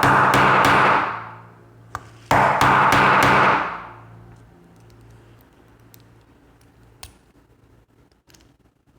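A hammer striking a small steel punch held against an American Series 30 padlock, driving at the riveted lock body to break it apart. The blows come in two quick flurries, one at the start and another about two seconds in, and each flurry rings out, leaving only faint taps afterward.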